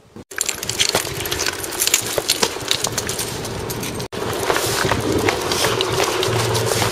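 Footsteps and small dogs' paws crunching on a gravel path, with the jingle of metal leash clips and collar tags. A steady low hum runs underneath and grows louder near the end.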